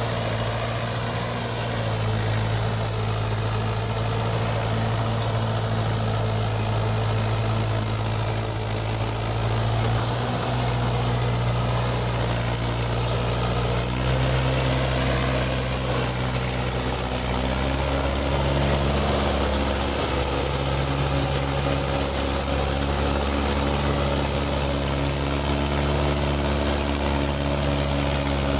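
Mahindra 575 DI XP Plus tractor's four-cylinder diesel engine running steadily while pulling a trolley fully loaded with soil. The engine speed shifts slightly up and down a few times in the second half.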